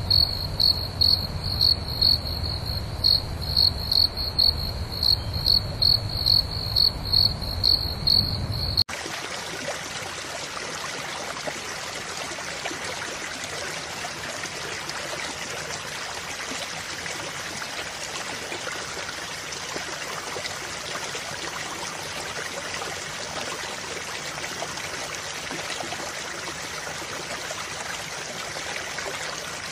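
An insect chirps in a steady high pulse about twice a second over a low rumble. After an abrupt cut about nine seconds in, water runs steadily from a small electric pump's hose, pouring and splashing into a puddle.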